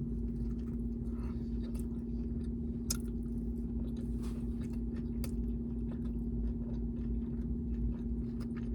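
A person chewing a taco with the mouth close to the microphone, with scattered small wet clicks and smacks. A steady low hum runs underneath.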